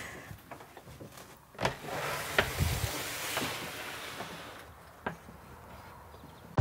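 A wooden front door being unlocked and pulled open: a few sharp clicks of the rim lock and latch, the strongest about a second and a half in, then a soft rush of outdoor noise that swells as the door opens and fades.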